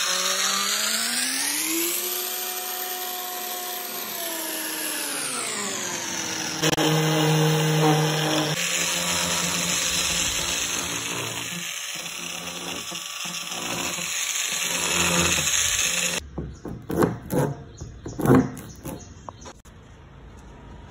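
Handheld electric drill with a hole-saw core bit cutting holes through a plastic water tank wall. The motor whines, its pitch rising and then dropping back, and it runs on steadily until it stops abruptly about 16 s in. A few irregular knocks follow near the end.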